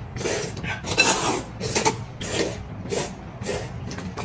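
Close-miked eating noises: chewing and mouth sounds from a mukbang eater, coming in a rough rhythm of about one to two bites a second.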